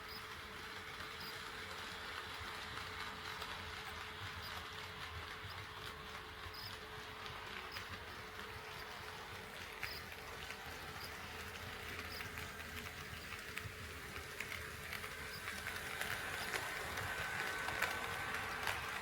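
HO scale model train running on KATO Unitrack: a steady motor and wheel whir with light clicks, getting louder in the last few seconds as a thin whine comes in.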